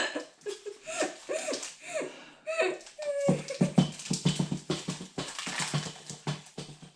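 A Rottweiler whining, a string of short rising-and-falling whines in the first three seconds. From a little after three seconds in comes a dense run of crackling and rustling.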